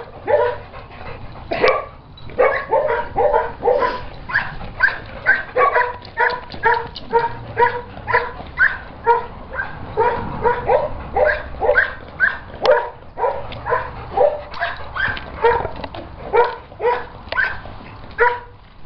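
A dog barking over and over in short, pitched yips, about two to three a second.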